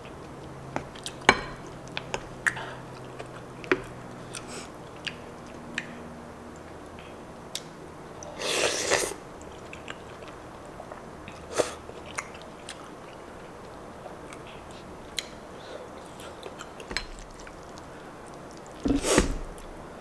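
Close-miked eating sounds: wet chewing and sharp mouth clicks, with two loud slurps of pasta strands, about eight seconds in and near the end.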